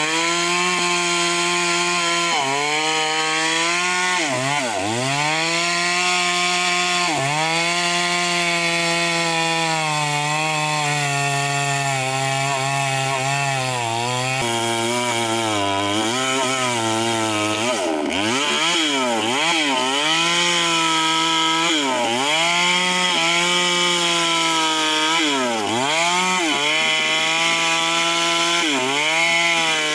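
Eagles 6620 two-stroke chainsaw running at high revs while cutting wood, its engine speed repeatedly dipping and climbing back, with a quick run of dips past the middle.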